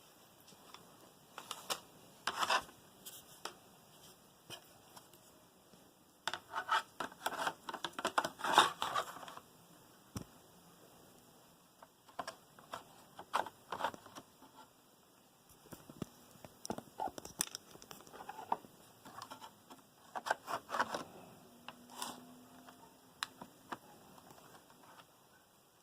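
Irregular handling noises: bursts of small clicks, scrapes and rustling, in clusters separated by quieter gaps.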